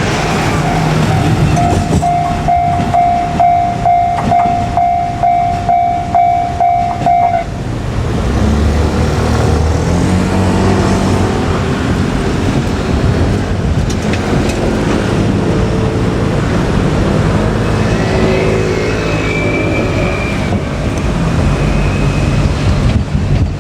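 Level-crossing warning bell ringing about twice a second as a JR KiHa 200 diesel railcar goes past; the bell stops abruptly about seven seconds in. After it comes the low rumble of the railcar's diesel engine and wheels, its pitch shifting.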